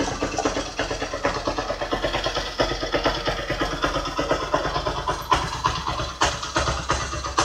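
Honda Mega Pro's single-cylinder four-stroke engine idling at about 1,000 rpm, a steady fast run of firing pulses.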